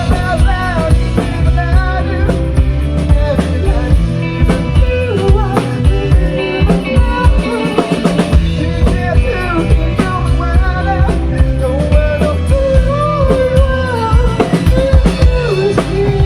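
Rock band playing: drum kit keeping a steady beat under guitar, with a wavering sung or lead melody over it.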